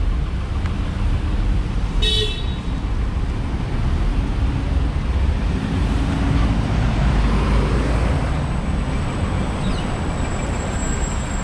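Road noise from a moving car heard from inside: a steady low rumble, with a short high-pitched toot about two seconds in.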